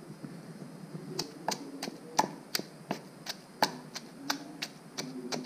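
A pestle pounding food in a mortar: a steady series of sharp knocks, about three a second, starting about a second in.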